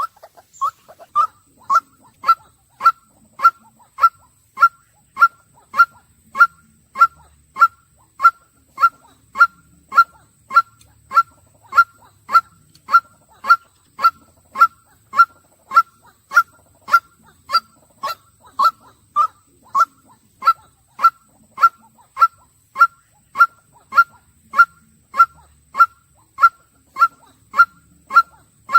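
White-breasted waterhen calling a single short "kwak" note over and over at an even pace, a little under two calls a second, without a break.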